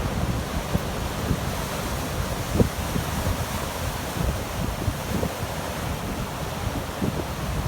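Heavy storm surf breaking and rushing on a sandy beach, with wind buffeting the microphone in low gusts.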